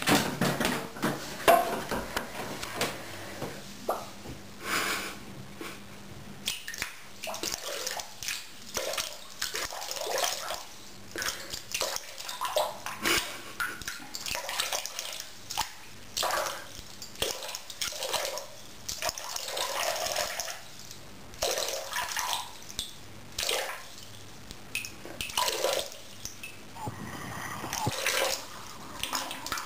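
Toilet paper being pulled off the roll and crumpled by hand: a run of irregular crackling rustles in a small bathroom.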